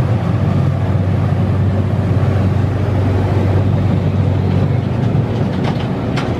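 Canal tour boat's engine running steadily with a low, even hum over a steady rushing noise, with a couple of faint clicks near the end.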